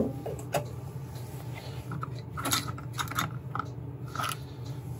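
Hard 3D-printed plastic parts being handled and fitted onto a mini lathe's metal guard: a few scattered light clicks and knocks.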